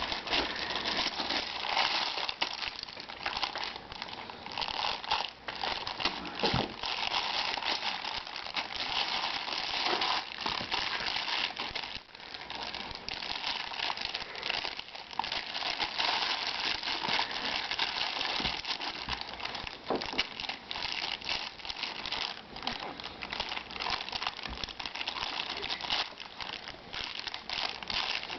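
Soft plastic baby-wipes package crinkling continuously and irregularly as a baby handles it.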